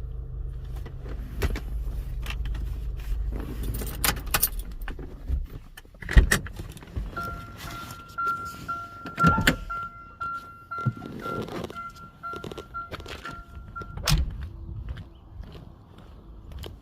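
2009 Chevy Cobalt's engine idling, then shut off about five and a half seconds in. After it, clicks and knocks with keys jangling, and a rapidly pulsing electronic chime for about seven seconds that stops abruptly.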